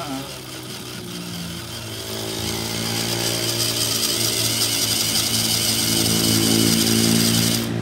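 RC crawler truck's electric motor and gearbox whining under load as it climbs a steep slope, growing louder as it nears, with the high whine cutting off suddenly near the end when the throttle is released.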